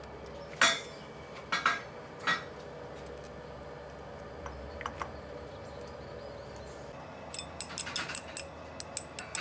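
Metal tools and parts clinking: three sharp clinks in the first two and a half seconds, then a quick run of light metallic clicks near the end, over a faint steady hum.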